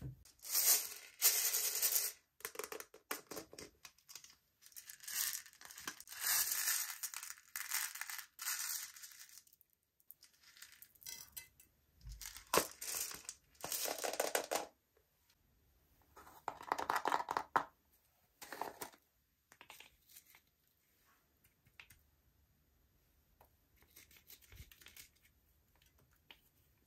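Slime being mixed and stretched by hand, in bursts of sticky crackly noise a second or two long with short quiet gaps between. The bursts grow fainter in the last third.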